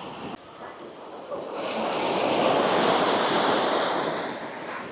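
Ocean surf: a wave breaks and washes up the beach. It swells about a second in, is loudest in the middle and fades away near the end, with some wind on the microphone.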